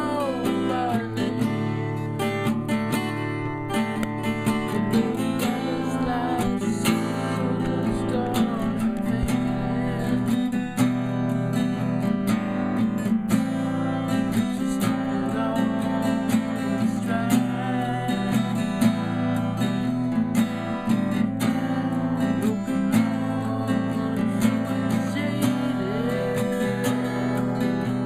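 Solo acoustic guitar playing an instrumental piece: a steady, dense run of picked and strummed notes and chords.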